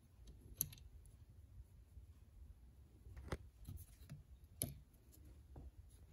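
A few faint, sharp clicks of metal carburetor parts being handled, as the idle stop solenoid and its bracket are worked loose from a Rochester Quadrajet carburetor.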